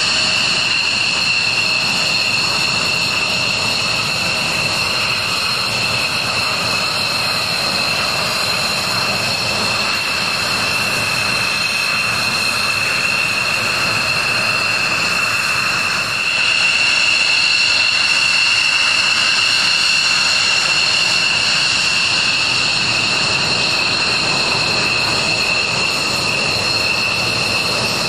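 F-16 fighter jets' turbofan engines running at low power, a loud steady high-pitched whine with two strong tones. It grows a little louder about sixteen seconds in.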